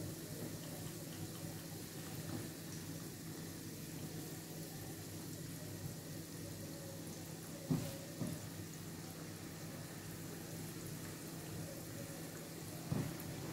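Roscos (ring doughnuts) deep-frying in hot oil in a frying pan, with a steady, low sizzle and bubbling. There are two light knocks about eight seconds in and another near the end.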